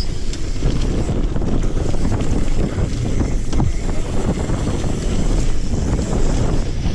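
Wind buffeting the microphone over a steady low rumble of BMX tyres rolling on a dirt track.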